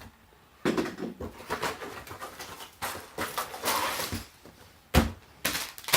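Toy packaging being handled: irregular rustling with a few sharp clicks, the loudest near the end.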